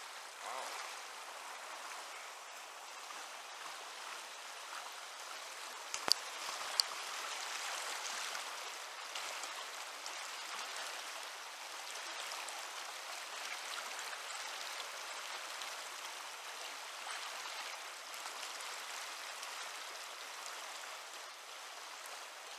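Steady rush of flowing river water, with two sharp clicks about six seconds in.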